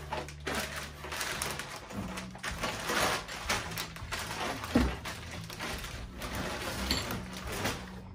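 Clear plastic bag rustling and crinkling as a plastic snorkel body is pulled out of it and the wrapping is shaken off, with one sharp knock just before the middle.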